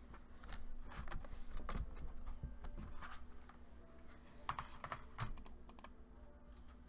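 Irregular keystrokes and clicks on a computer keyboard, with a quick run of clicks about five seconds in. A faint steady hum sits underneath.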